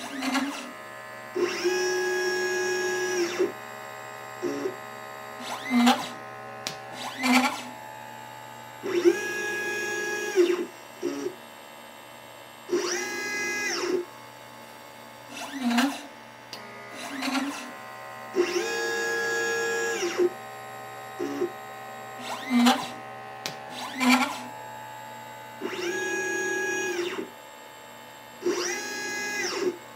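LitePlacer pick-and-place machine's stepper motors whining as the gantry moves while placing an IC: each long move is a steady whine of one to two seconds that slides up at the start and down at the end, with short chirps from brief moves in between.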